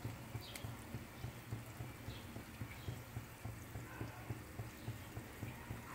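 Eggplant frying in oil in a pan: a faint sizzle with small irregular pops and crackles over a low steady hum.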